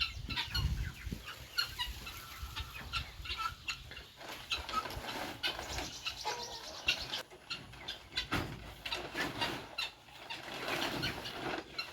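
A flock of chickens clucking and calling, with many short taps and clicks scattered throughout.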